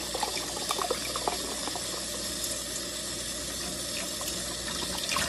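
Kitchen tap running steadily, water pouring into a glass jar of sprouting seeds through its mesh screen lid to rinse them.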